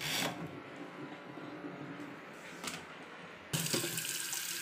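A knock at the start and another about two and a half seconds in, then about three and a half seconds in a kitchen tap is turned on and water runs steadily into a steel bowl in a stainless steel sink, rinsing red dates, dried longan and Chinese yam.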